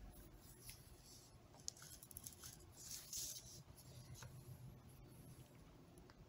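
Near silence with faint handling noise: a few light clicks and a brief rustle, about three seconds in, as gloved hands set a TIG torch down on paper and pick up another.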